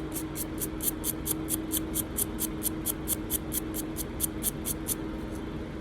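Brass brush scrubbing the flint wheel of a vintage lighter in quick, even strokes, about five a second, stopping about five seconds in.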